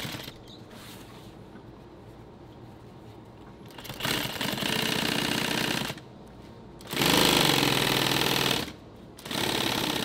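Industrial sewing machine stitching camouflage fabric in short runs of rapid, rhythmic needle strokes: one starting about four seconds in for two seconds, a louder one about seven seconds in for nearly two seconds, and another near the end, with pauses between.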